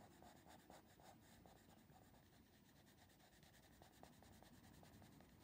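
Faint scratching of a Derwent Coloursoft pencil crayon shading on paper, in quick short strokes, several a second.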